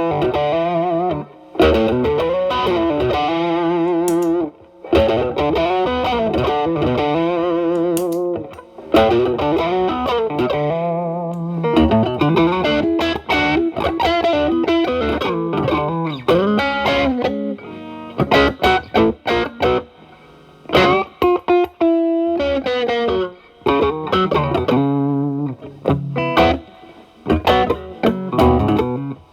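Telecaster electric guitar through an E.W.S. Brute Drive distortion pedal into a Marshall Valvestate amp's drive channel: a heavily distorted blues lead of held notes with wide vibrato, bends and quick runs. The pedal's boost is switched on about five seconds in. Near the end the guitar's volume is rolled back to clean up the tone, and the playing turns to shorter, choppier notes.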